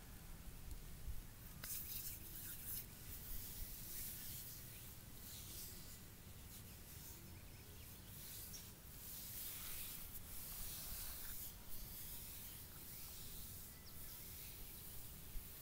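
Faint, irregular rubbing and swishing of a hand massaging oiled skin on the leg close to the microphone, over a low steady rumble.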